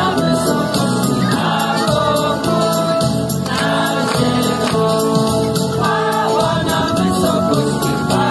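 A women's choir singing a song in unison through microphones, over music with a steady, regular beat.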